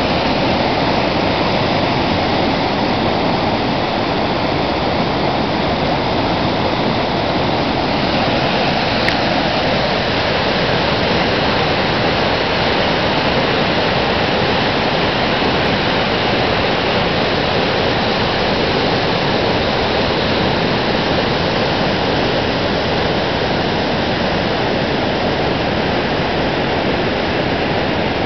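A river in flood, fast high water rushing in a loud, steady roar with no let-up.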